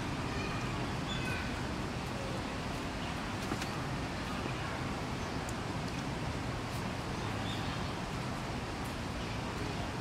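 Steady outdoor background noise with a few faint, short bird chirps in the first two seconds and one more near the end.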